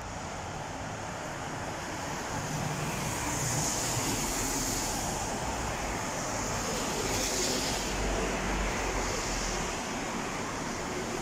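Road traffic passing on a wet street: car tyres hissing on the wet pavement over a low engine rumble, the hiss swelling twice as cars go by.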